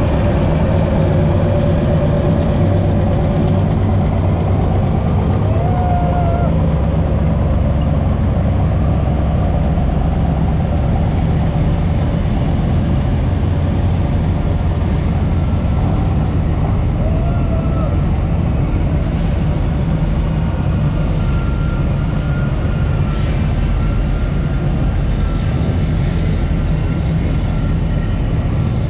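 Heavy military vehicles driving slowly past in a column, a deep steady engine rumble: first a tracked K10 ammunition resupply vehicle, then large wheeled trucks carrying a Chunmoo 230 mm multiple rocket launcher and a TPQ-74K counter-battery radar. A few faint clicks in the second half.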